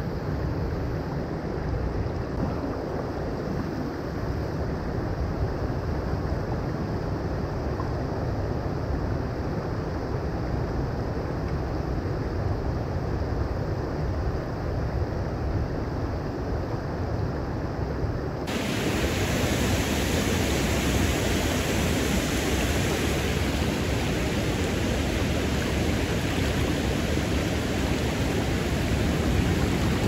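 Shallow creek water rushing over rocks and riffles: a steady wash of water noise. About two-thirds of the way through it turns suddenly brighter and hissier.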